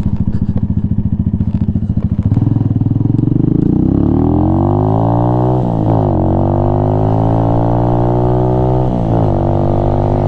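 Venom Ghost Chopper 250 motorcycle engine pulling away. About two seconds in the revs start climbing, drop briefly for an upshift around six seconds and again near nine, then hold steady as it cruises.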